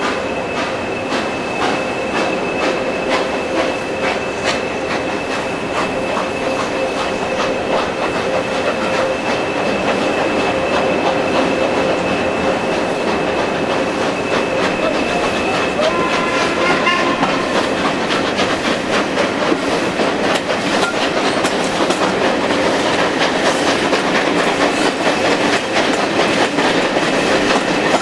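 Heritage train coaches rolling out of a station: wheels clicking over rail joints and pointwork, growing slightly louder in the second half. A steady high wheel squeal runs through the first half and stops about halfway through.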